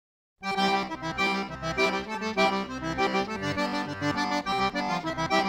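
Background music with held chords, starting about half a second in.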